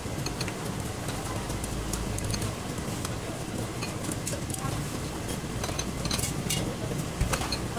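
Wire noodle strainer and chopsticks clicking against ceramic bowls and a steel pot as blanched greens and noodles are shared out into bowls, a few separate clicks spread through, over a steady low rumble.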